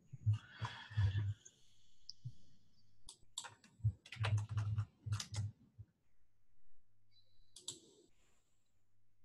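Computer keyboard being typed on in quick bursts of keystrokes, a pause in the middle, and a last few strikes near the end.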